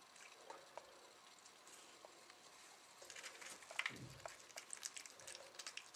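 Faint sounds of a cat eating boiled fish: near quiet at first, then from about halfway a run of small quick chewing clicks and taps, with one slightly louder knock a little past halfway.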